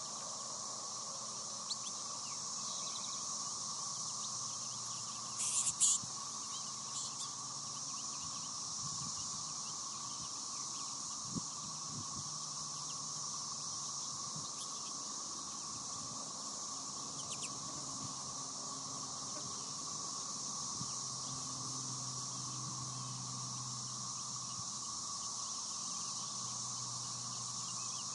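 Steady outdoor ambience dominated by a continuous high-pitched insect drone, with a few short bird chirps, the loudest cluster about six seconds in.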